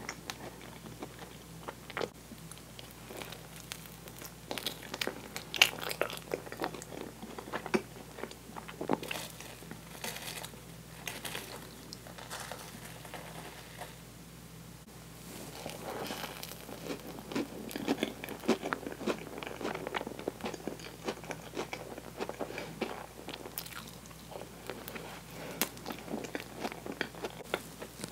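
Chewing of sticky toasted marshmallow, with many short mouth clicks and a quieter stretch about halfway through.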